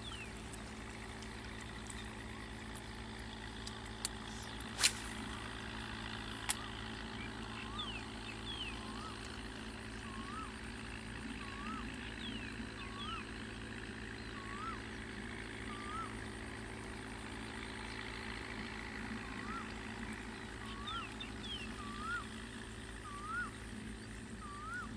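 Outdoor ambience over a steady low hum: an animal's short rising call repeats about once a second, with a few faint higher chirps. Three sharp clicks come about four to six seconds in.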